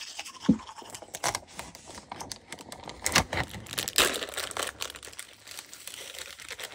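Plastic bag of granola crinkling and rustling in the hands as the granola is shaken out into a bowl, with a dull thump about half a second in.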